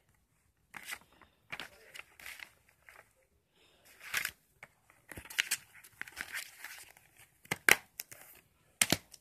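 A glossy paper insert rustling and crinkling as it is unfolded, folded up and pushed into a plastic DVD case, in irregular bursts. Two sharp plastic clicks near the end as the case is handled shut.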